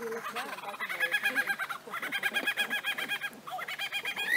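Superb lyrebird singing: fast, evenly repeated looping notes in three runs, each broken off by a short pause.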